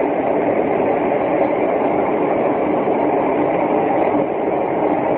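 A steady, loud rushing drone of unknown origin that has gone on for hours, holding even in level with no beat or distinct tones.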